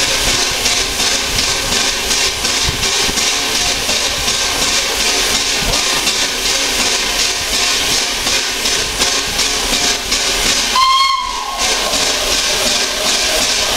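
Steam hissing steadily from the standing A1 Pacific steam locomotive 60163 Tornado. A brief whistle sounds about eleven seconds in.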